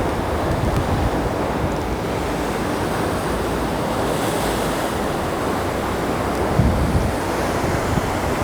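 Heavy ocean surf, a steady rushing wash of big rolling waves, with wind buffeting the microphone in a few low gusts late on.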